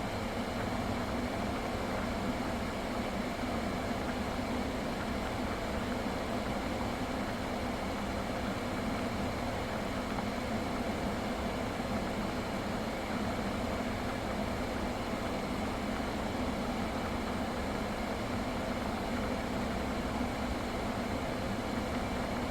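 Kia K5 car idling steadily with its air conditioning running after a refrigerant and compressor-oil recharge: an even hum that does not change.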